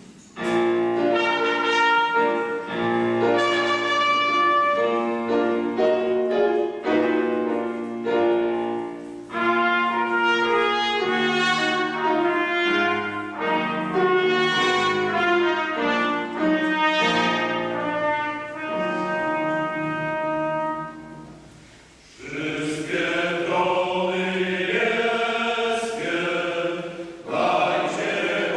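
A trumpet plays a melody in steady held notes for about twenty seconds. After a brief pause, a mixed choir begins singing.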